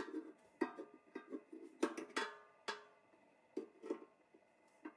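Small metal parts and hand tools being handled: an uneven series of light taps and clinks, about a dozen, the louder ones ringing briefly.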